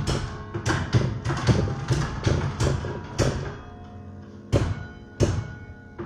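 Church tower bells struck one after another, playing a Christmas carol melody, each note a sharp strike with a thud followed by ringing. The strikes come quickly at first, pause for about a second just past the middle, then resume more slowly.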